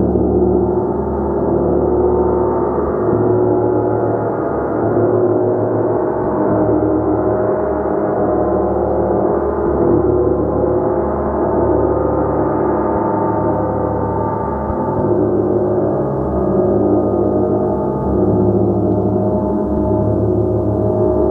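Gong played continuously, a dense sustained wash of many ringing tones whose loudness swells and eases gently every couple of seconds.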